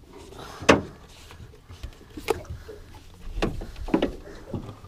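About five short, sharp knocks and bumps spread over a few seconds, the loudest about a second in: gear and bodies bumping against the deck and gunwale of a small fishing boat.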